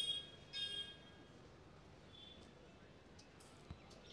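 Two short, high chirps in quick succession, like a small bird calling, then a few faint ticks.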